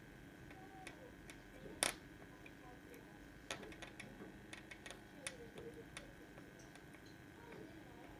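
Faint clicks and ticks of small electronic parts and wires being pressed and fitted into a metal Altoids tin by hand: one sharper click about two seconds in, then a run of light ticks a second later. Under them is a faint steady high whine from the small fan set up to draw solder smoke away.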